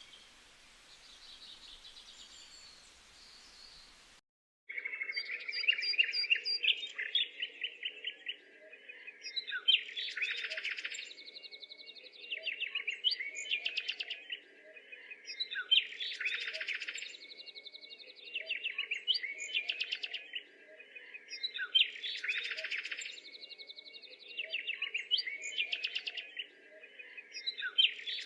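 Bird song: faint calls at first, then, after a brief break about four seconds in, a loud song of rapid chirps and trills repeating in near-identical phrases about every three seconds.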